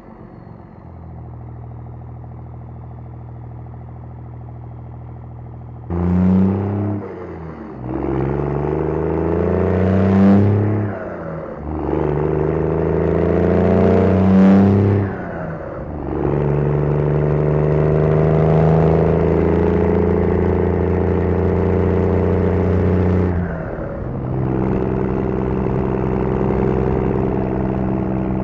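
2002 Dodge Ram 2500's 5.9-litre Cummins inline-six turbo diesel, through a 5-inch turbo-back exhaust with a single 8-inch stack, running low and steady. About six seconds in it suddenly gets loud and revs up hard three times, the pitch climbing and then falling away each time. It then holds a steady, louder drone, dips briefly near the end and settles again.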